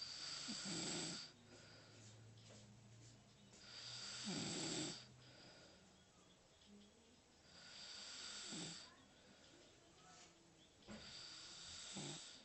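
Snoring: four long, hissing snores about four seconds apart, each with a short low rattle.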